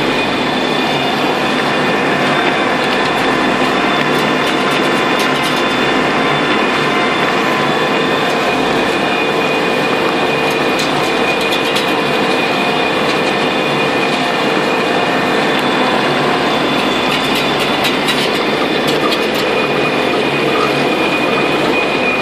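Carrot harvester running while lifting carrots: a steady mechanical clatter of its lifting belts and sieving conveyor over the running engine, with a steady high whine on top.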